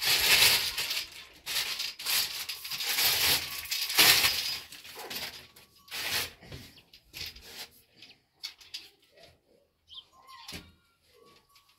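Water spraying from a handheld shower head against tiles, hissing in several surges for the first four seconds or so, then stopping. Small clicks and knocks of the hose and fittings being handled follow.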